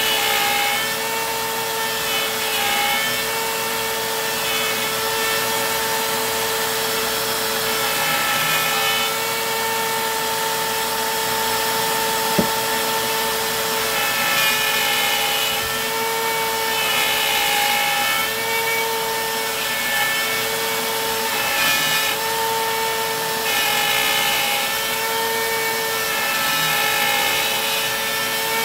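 DeWalt compact router spinning a 5D Tactical end mill, cutting out the pocket of an 80% lower receiver held in a jig. It is a continuous high whine with a cutting rasp that swells and eases every few seconds as the bit is fed along, and a single sharp click about 12 seconds in.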